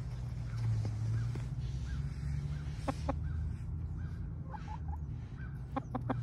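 Domestic chickens clucking: short calls come in small clusters, a pair about three seconds in and a quick run of several near the end, over a steady low hum.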